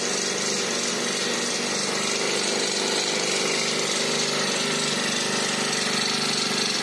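Small 30cc four-stroke petrol engine running steadily, a constant buzzing tone.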